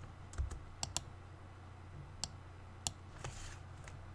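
Computer keyboard and mouse clicks: about half a dozen sharp, irregular taps over a steady low hum.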